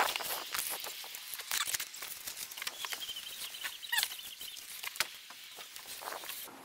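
A wet wipe rubbed over the glass of a rooftop solar panel: irregular scrubbing strokes with a few short squeaks.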